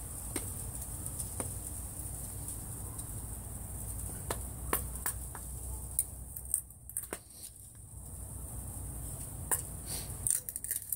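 Thin pine strips being split into kindling with a SOG Fasthawk tomahawk pressed down through them onto a wooden board: scattered sharp cracks and taps of the wood giving way and the blade knocking the board, at irregular intervals.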